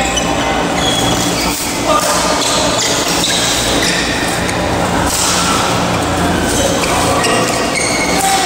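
Busy indoor badminton hall: shuttlecock hits and shoe squeaks from play on the courts, with the sharpest knock about two seconds in, over voices and a steady low hum, all echoing in the large hall.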